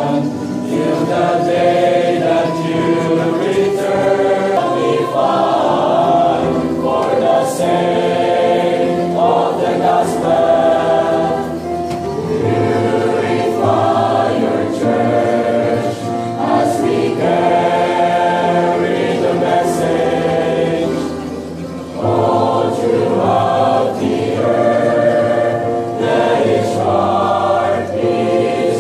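A large group of voices singing a worship song together, choir-like, with a brief drop in level about two-thirds of the way through.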